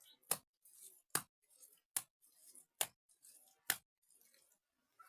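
Wet mud being slapped by hand onto a cracked mud-house wall: five sharp slaps a little under a second apart, with softer rubbing and smearing between them, stopping about four seconds in.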